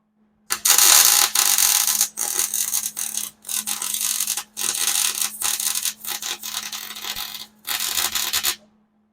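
Hobart wire-feed (MIG) welder arc crackling in about seven short weld runs, each stopping sharply before the next.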